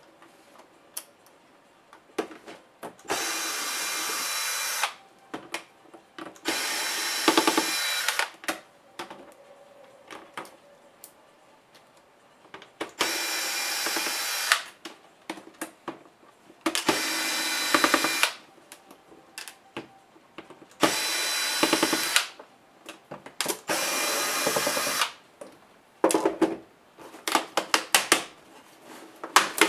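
Cordless drill/driver spinning out the screws of a laptop's screen bezel in six short runs of a second or two each, with small clicks of handling between. Near the end comes a quick string of sharp plastic clicks as the display panel is handled.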